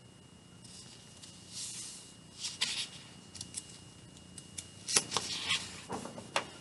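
A cardboard children's board book being handled as its page is turned: a run of brief rustles, scrapes and sharp clicks, starting about a second in.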